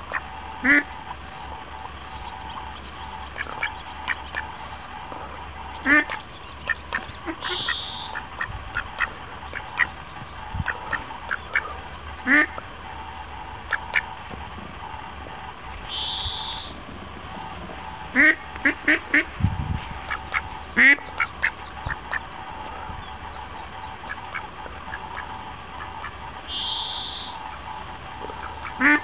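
Duck quacking: single quacks every few seconds and a quick run of several about eighteen seconds in, over a steady background hum.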